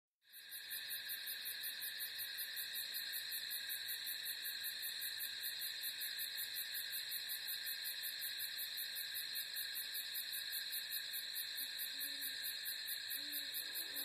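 Night chorus of crickets: steady high trills with a fast chirping pulse about five times a second, fading in at the very start.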